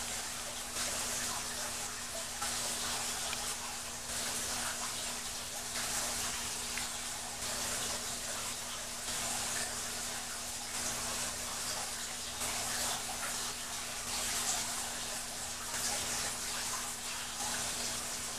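Aquarium water bubbling and splashing steadily from its filtration and aeration, with a steady low hum beneath.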